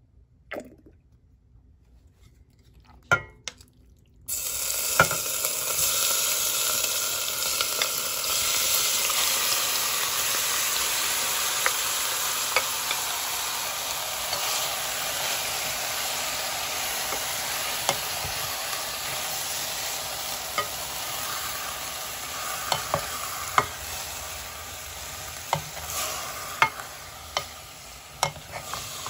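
Pork and kimchi frying in hot oil in a stainless steel pot, a steady sizzle that starts suddenly about four seconds in after a few faint knocks. A spatula stirs the stir-fry, knocking against the pot now and then. This is the stir-fry stage before water goes in.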